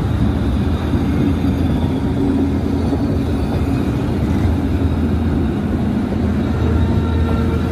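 Diesel-hauled Abu Qir commuter train rolling slowly past at close range: a steady low rumble and hum, with no clear rail clatter.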